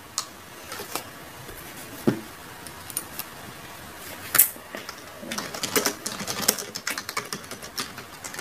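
Typing on a computer keyboard: a few separate keystrokes, then a quicker run of typing in the second half.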